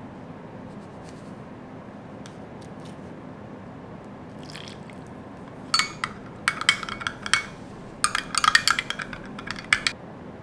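Long metal spoon stirring coconut powder and instant coffee in a glass cup, clinking rapidly against the glass in bursts from about six seconds in until near the end, after a few faint light taps.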